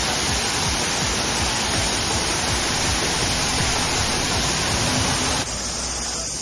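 Steady rush of the Manai Falls waterfall, an even noise with no distinct notes, that drops abruptly to a quieter, thinner sound about five and a half seconds in.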